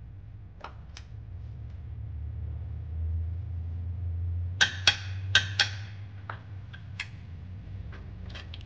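Sharp metallic clicks of a 3/8-drive torque wrench as bolts are torqued to 50 foot-pounds: four loud clicks in quick succession in the middle, with fainter ones before and after. A low steady hum runs underneath.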